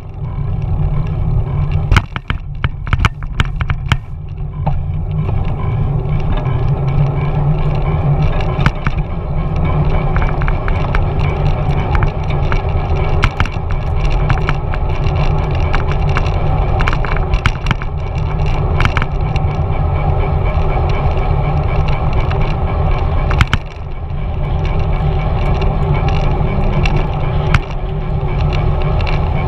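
Riding an electric mountain bike: a steady low rumble of wind on the camera microphone and tyre noise, broken by many sharp clicks and rattles as the bike goes over bumps in the road.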